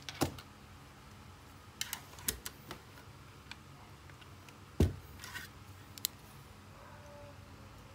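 Scattered clicks and light knocks of eyeglass frames being handled and set on a mannequin head, with one louder knock nearly five seconds in.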